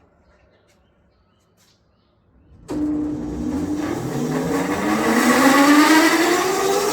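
A machine starts abruptly about two and a half seconds in, after near silence, and its whine rises steadily in pitch as it speeds up.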